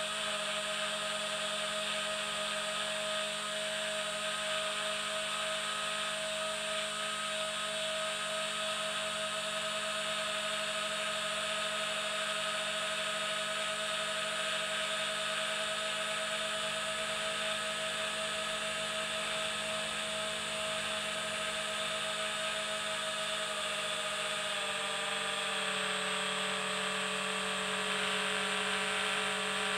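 Steady whine of a radio-controlled model aircraft's electric motor and propeller, heard close from the onboard camera, with a faint rush of air over it. Its pitch dips slightly near the end.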